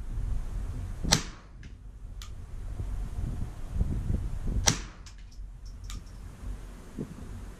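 Two shots from a Bergara BXR .22 LR semi-automatic rifle. Each is a short, sharp report: one about a second in, the next about three and a half seconds later. Under them runs a steady low rumble.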